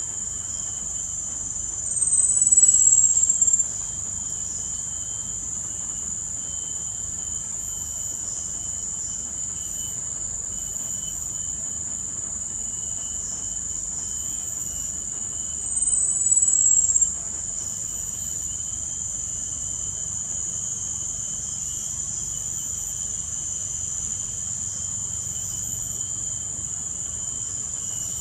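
A steady, high-pitched drone of forest insects, with two louder, slightly falling high calls of about a second each, one about two seconds in and one about sixteen seconds in.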